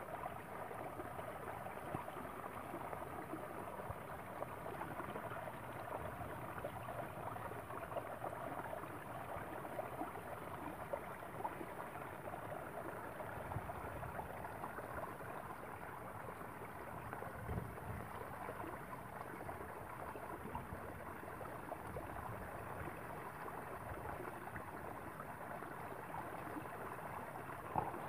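Steady trickle and splash of running water.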